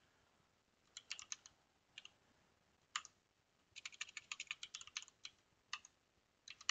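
Computer keyboard being typed on, faint: short runs of key taps with pauses between, and a quicker run of a dozen or so taps in the middle.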